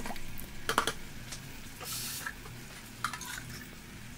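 Canned tomatoes being emptied from a tin can into a pot of browned mince, with sharp knocks of the tin can just before a second in, a short soft hiss about two seconds in, and a few lighter knocks near three seconds.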